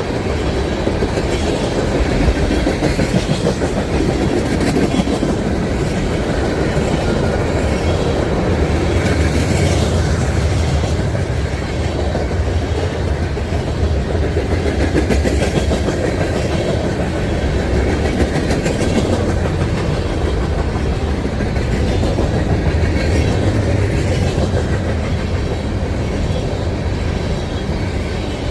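Railroad cars rolling steadily past, their wheels clacking in a repeating rhythm over the rail joints.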